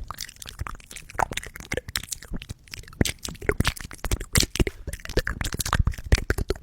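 ASMR mouth sounds close to the microphone: a rapid, irregular run of wet clicks and pops, growing louder about halfway through.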